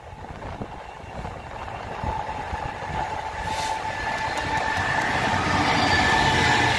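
Freightliner Class 66 diesel-electric locomotive, its EMD two-stroke V12 engine running under load, hauling a train of open box wagons toward and past the listener, steadily growing louder. From about two seconds in, a steady high-pitched squeal from the wagon wheels joins the rumble and holds as the wagons roll by.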